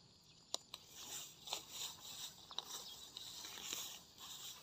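Faint footsteps through grass or brush: irregular crunches and rustles with a few sharp clicks.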